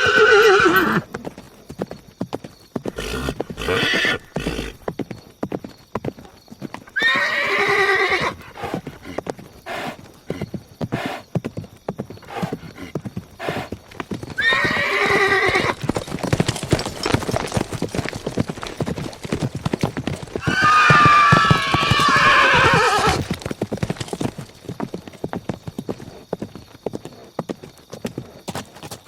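Horses whinnying four times, the last call the longest, over a steady clip-clop of hooves.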